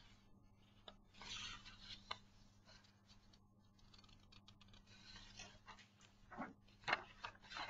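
Faint rubbing of a cloth wiping car door paint, over a low steady hum, with a few sharp clicks near the end.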